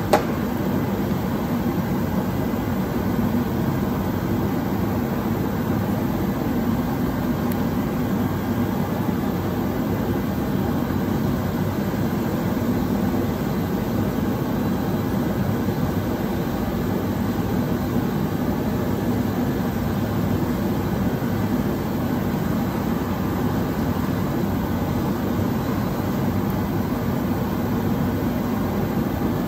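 Steady low drone with a hiss from running machinery, unchanging in level throughout, with one brief click at the start.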